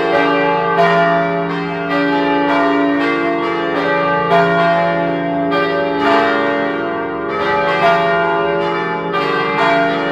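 Church tower bells ringing a full peal: several bells strike over one another again and again, their tones overlapping and ringing on without a break.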